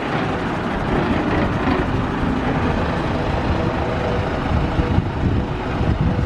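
Diesel engine of an ERF lorry tractor unit running as the lorry drives past close by and turns in, getting louder over the first second, then holding steady.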